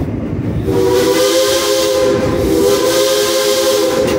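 Steam locomotive whistle blown in one long steady blast that sounds several tones at once, with a hiss of steam over the running train's rumble.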